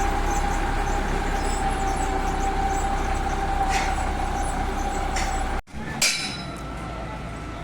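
Heavy vehicle engine running steadily with a steady whine over the rumble. About five and a half seconds in the sound cuts out briefly, then comes a sharp knock and a quieter rumble.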